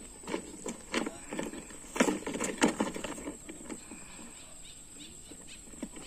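Plastic wheels of a child's ride-on toy excavator crunching and rattling over loose gravel as it is pushed along, in irregular clicks and knocks that are busiest in the first three seconds.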